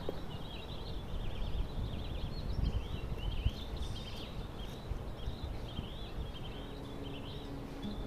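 Small songbirds chirping and twittering continuously, many short quick calls, over a steady low urban background rumble.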